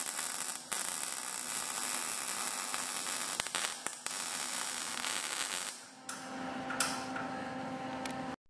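Electric welding arc crackling and hissing in long bursts that stop and restart a few times, with a steady hum beneath.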